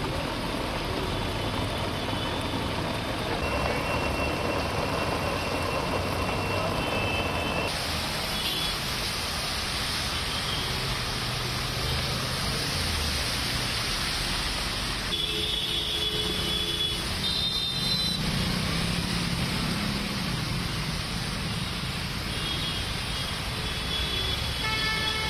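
Heavy rain beating on a flooded road. About eight seconds in it gives way to traffic driving through floodwater, with engines running, and a few short horn toots later on.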